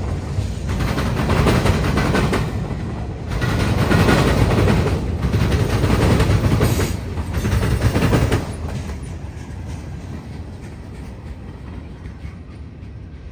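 Freight train cars rolling past: the rumble and clatter of steel wheels on the rails, rising and falling in swells. About eight seconds in it drops to a quieter, steady rumble.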